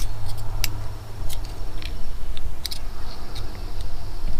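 Small sharp metal clicks, about half a dozen at uneven intervals, from the folding knife blade and locking mechanism of an Outdoor Edge Chow Pal multi-tool being worked by hand, over a steady low hum.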